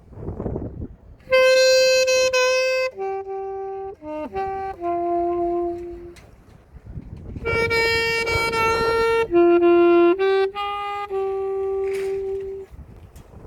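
Unaccompanied alto saxophone playing a slow melody in long held notes, with two loud, bright sustained notes among quieter shorter ones. A low hum of street noise runs underneath.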